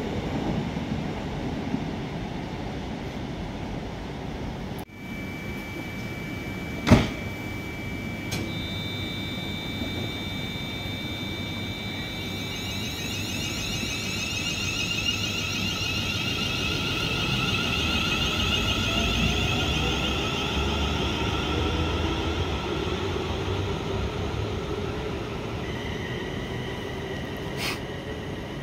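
Steady high whines of small electric motors, as of model trains running on a layout, over the noise of a busy hall. A sharp click comes about seven seconds in.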